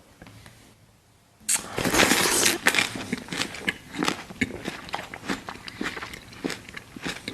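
Close-miked eating. There is a brief hush, then about a second and a half in a loud bite, followed by steady crunchy chewing with many small sharp clicks and crackles.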